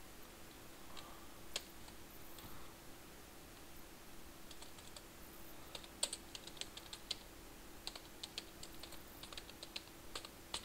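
Computer keyboard being typed on, faint key clicks: a few scattered keystrokes at first, then quicker runs of typing from about halfway in. A faint steady hum sits underneath.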